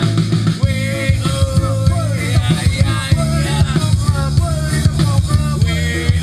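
A song playing: a melody over regular drum hits and a heavy bass line.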